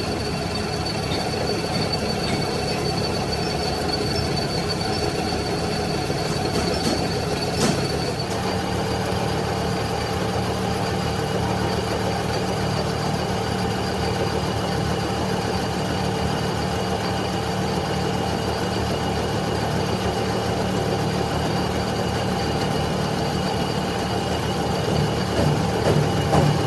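Lathe running steadily with a constant machine hum and whine, the tone shifting slightly about eight seconds in.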